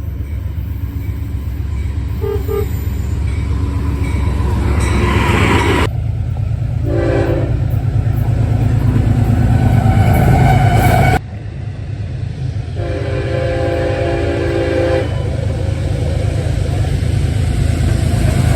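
Trains passing with a steady heavy rumble, cut together from several clips, with train horns sounding: a short blast about seven seconds in and a longer blast of about two seconds partway through.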